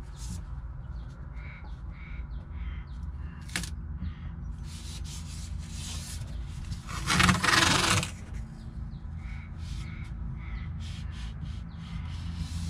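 Masking tape being pulled off its roll and pressed along a varnished wooden coaming, with a loud rasp of tape unrolling for about a second near the middle.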